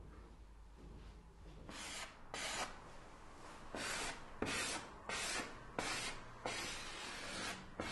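A series of rasping strokes rubbing across a canvas: an artist's drawing or painting strokes, about seven of them starting about two seconds in, the last one longer.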